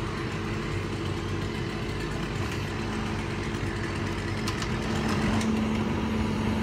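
A motor running steadily, a low hum at an even pitch, with a few faint clicks about four to five seconds in.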